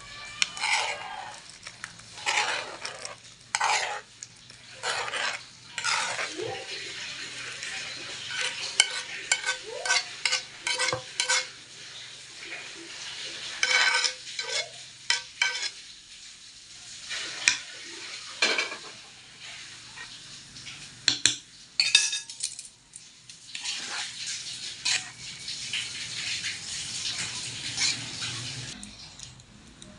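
Utensils scraping and clinking against a frying pan and a granite-coated pot as creamy carbonara sauce is scraped out onto spaghetti and then tossed through it: irregular scrapes, clinks and wet stirring noises.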